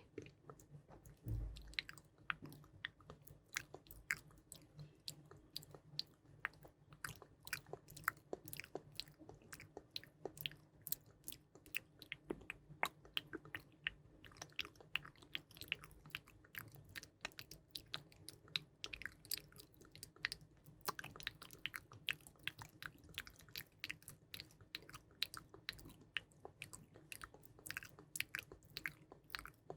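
Close-miked ASMR trigger sounds: a dense, irregular run of small soft clicks and crackles, several a second.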